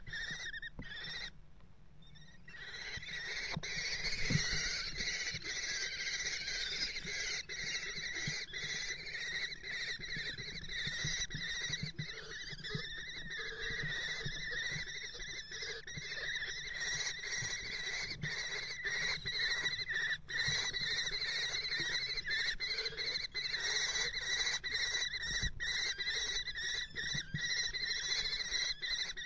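Common kestrels calling, a continuous high-pitched wheezing call that barely lets up, with scattered scratching and knocking.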